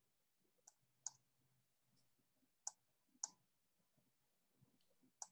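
A handful of short, sharp computer mouse clicks, about five spread unevenly across a few seconds, over near silence, as participants are being unmuted.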